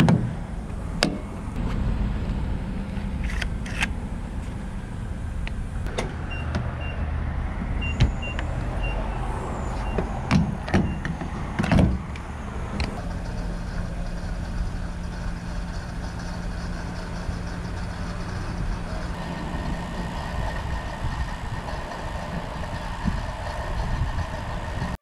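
Fuel pump nozzle filling a pickup's tank: a steady rush of fuel with several sharp clicks and knocks in the first twelve seconds, and a short run of faint high beeps about seven to nine seconds in.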